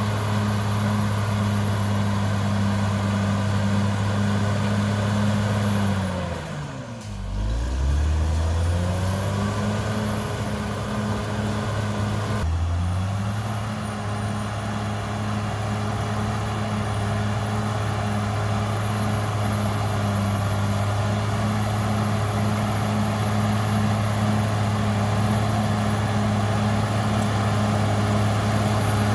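Cat D6R XL bulldozer's diesel engine running steadily at working revs, with a faint high whine above it. About six seconds in, the engine speed drops sharply and comes back up within a couple of seconds, and it dips briefly again around twelve seconds.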